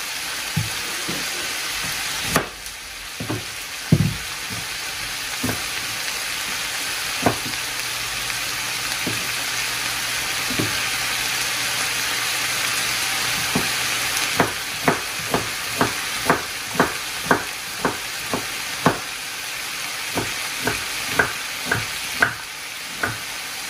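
Chopped tomatoes sizzling in a frying pan on an electric stove, with a kitchen knife chopping on a wooden cutting board. The chops come sparse at first, then in a steady run of about two a second through the second half.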